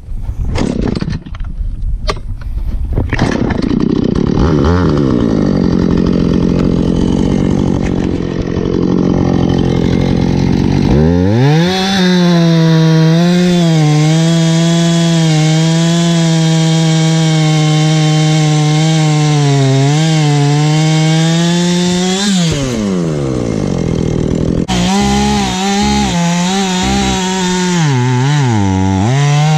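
Husqvarna 450 Rancher two-stroke chainsaw cutting wood. It opens with a few seconds of irregular clatter, then runs steadily and climbs to a higher, fuller pitch about eleven seconds in. About twenty-two seconds in the pitch falls sharply, then comes back up with repeated dips in pitch near the end.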